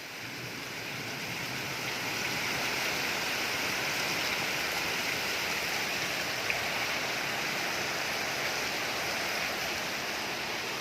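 Heavy rain in a windstorm: a steady rushing hiss that swells over the first two seconds and then holds.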